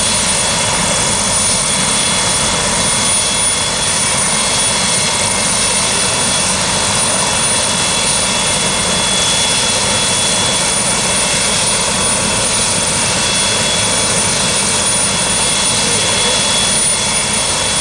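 Sheriff's helicopter running steadily: its turbine engine and rotor make an even noise, with a steady high whine over it.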